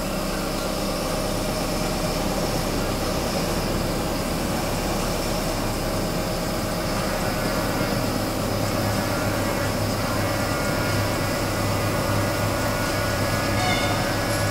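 Hydraulic excavator's diesel engine running steadily at idle, with a low hum that grows a little stronger about halfway through.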